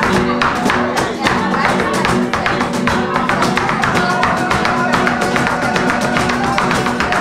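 Live flamenco music: two acoustic flamenco guitars strumming and plucking in a driving rhythm, with dense, sharp percussive strokes throughout.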